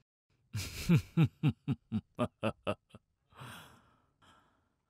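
A man laughing heartily: a run of about nine short "ha" pulses, each falling in pitch, ending in a breathy exhale.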